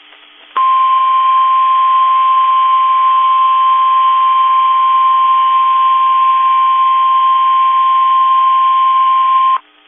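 NOAA Weather Radio's 1050 Hz warning alarm tone: one steady, high beep over faint radio hiss. It starts about half a second in, holds for about nine seconds and cuts off sharply. The tone signals that a warning broadcast follows, here a tornado warning.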